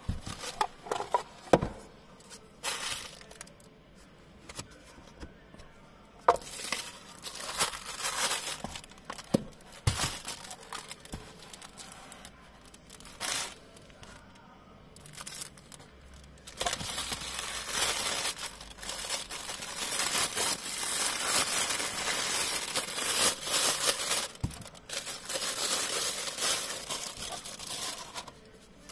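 Packaging handled by hand. Scattered taps and short rustles come first. A little past halfway, a long stretch of continuous crinkling of plastic wrapping begins.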